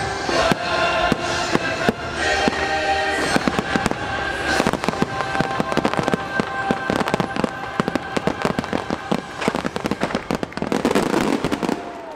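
Fireworks going off: many sharp bangs and crackles in quick succession over show music. The music's held notes fade a few seconds in, leaving dense volleys of bangs and crackle.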